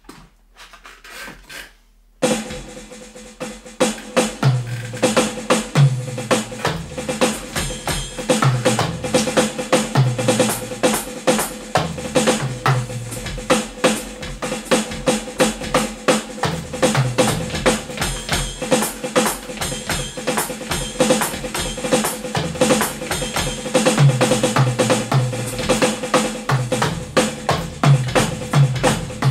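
Yamaha DTX electronic drum kit played through a powered monitor speaker: after a couple of seconds of near quiet, a continuous drum groove starts, with bass drum, snare and hi-hat hits packed closely together.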